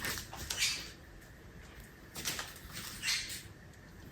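A border collie moving about close by, making a few short, faint rustling noises.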